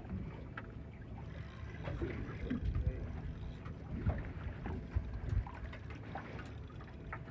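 Boat ambience on open water: a steady low rumble of wind on the microphone and water against the hull, with a few faint knocks.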